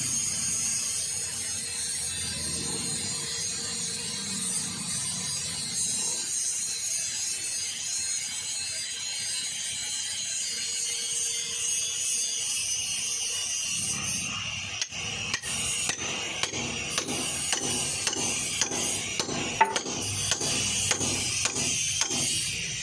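Light metal clicking and rattling of a steel rod and fingers working cloth into a tractor bearing bore, over a steady high hiss. The cloth packed in behind the bearing pushes it out a little at a time. The clicks start about two-thirds of the way in and come fast and uneven.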